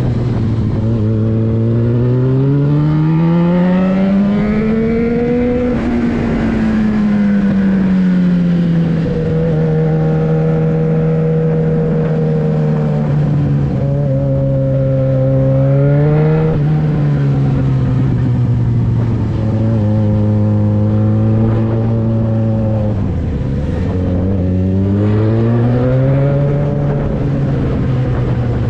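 Yamaha XJ6's 600 cc inline-four running through a LeoVince exhaust with the dB-killer removed, under way. The revs climb and then drop sharply several times, as at upshifts, with stretches of steady cruising between and a brief dip in revs about three quarters of the way through.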